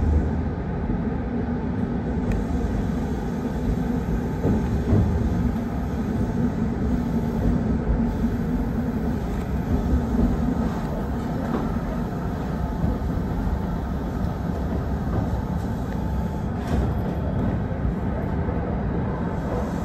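Kintetsu 1620 series electric train running along the track: a steady rumble of wheels and running gear with a low hum underneath.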